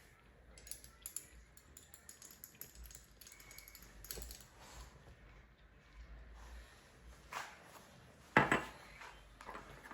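Kitchen utensils and containers clinking and tapping at a counter while ingredients are measured into a mixing bowl, with a sharper knock about eight seconds in.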